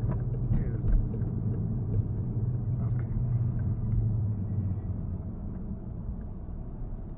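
Car's engine and road noise heard inside the cabin while driving, a steady low rumble that eases off after about four seconds.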